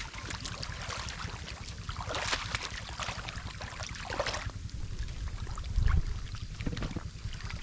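Running water splashing and rushing, over a steady low rumble. The splashing swells from about two to four and a half seconds in, and there is a dull thump about six seconds in.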